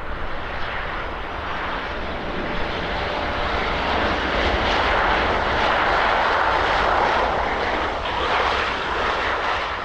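Boeing 737-700 jet's CFM56 turbofan engines as it comes in to land: a steady jet roar that swells to its loudest about six seconds in, then eases off.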